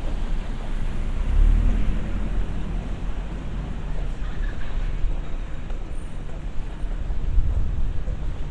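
City street traffic noise: a steady low rumble of passing vehicles that swells louder twice.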